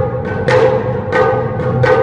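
Taiko drums struck in an even beat, three strong strokes about two-thirds of a second apart, over a held pitched tone from an accompanying melody instrument.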